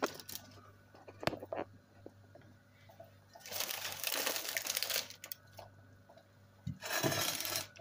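Handling noises on a kitchen counter: a few light knocks, then two stretches of crinkly rustling, one about three and a half seconds in and a shorter one near the end.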